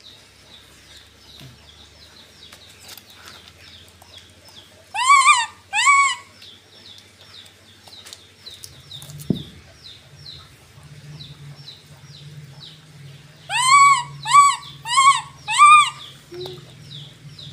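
Baby macaque giving clear pitched coo calls, each rising then falling in pitch: two about five seconds in, then four in quick succession near the end. Faint short high chirps repeat throughout.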